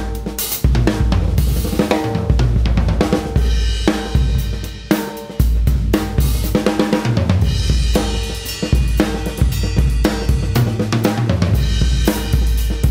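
Unix stave bubinga drum kit with a Joyful Noise copper snare and UFIP cymbals being played: a steady groove of kick drum, snare and hi-hat, with ringing toms and cymbal crashes. There is a brief lull just before five seconds in, then a loud hit as the playing picks back up.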